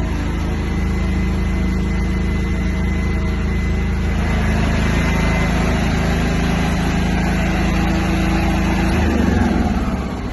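5 kW Bajaj petrol portable generator set running steadily with an even engine hum. About nine seconds in the hum changes, and near the end it falls off in level.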